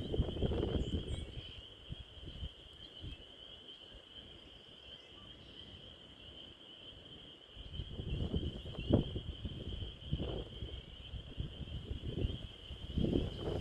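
A chorus of spring peppers calling, their high peeps merging into a steady shrill trill. Bursts of low rumbling noise come near the start and again from about eight seconds in.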